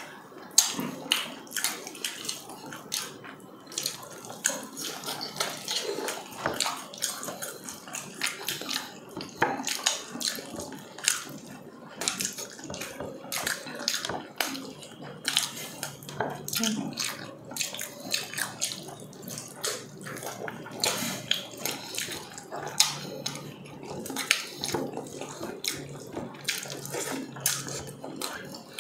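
Close-up wet eating sounds: mouths chewing and smacking on meat eaten by hand, with frequent irregular sharp wet clicks.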